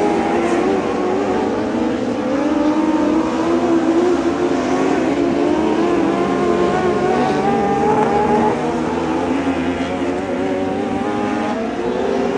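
A pack of dwarf race cars with small motorcycle engines racing at high revs. Several engine notes overlap, each rising and falling as the cars slow for the turns and accelerate out of them.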